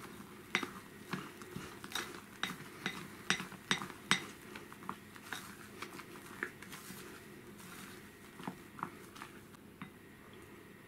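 Silicone spatula knocking and scraping against a glass mixing bowl while folding meringue through a thick chocolate batter: sharp clicks about twice a second for the first half, then only a few scattered ones.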